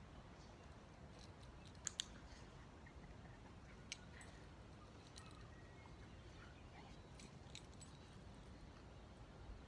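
Near silence: faint outdoor ambience, broken by a few short sharp clicks, a close pair about two seconds in and another just before four seconds.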